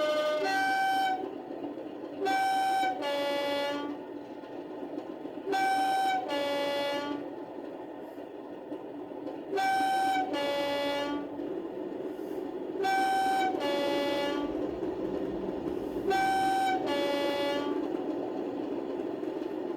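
Sound-fitted OO gauge Accurascale Class 37 model locomotive's two-tone air horn sound, played six times through its small onboard speaker, each blast a higher note followed by a lower one. A steady diesel engine rumble from the model's sound decoder runs underneath.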